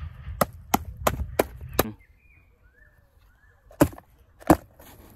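Small cardboard boxes being knocked and handled. Five quick, sharp taps come in under two seconds over a low wind rumble on the microphone. Then, after a short pause, two louder thuds land about two-thirds of a second apart as a box is set on a larger cardboard carton.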